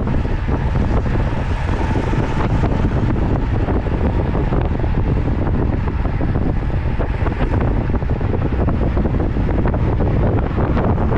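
Strong wind buffeting the microphone of a camera on a moving road bike: a loud, steady low rumble and rush of air with no breaks.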